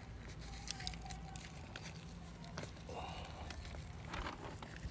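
Nitrile-gloved hands handling and tying butcher's twine around a raw leg of lamb: scattered small clicks and rustles over a steady low background hum.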